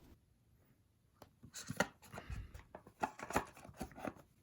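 Small parts and tools being handled on a tabletop: an irregular run of light taps, clicks and rustles, starting about a second in.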